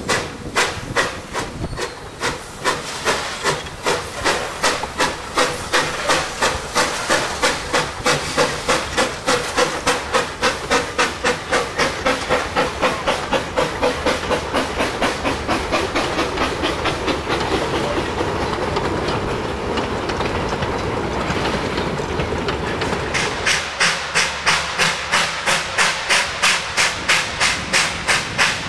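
Victorian Railways NA class narrow-gauge steam locomotive 12A working hard with a loaded mixed goods train: sharp, regular exhaust beats, about two to three a second, with steam hissing from the open cylinder cocks as it gets away. In the middle the beats blur under the sound of the wagons rolling past. Near the end a cut brings in the engine beating hard again.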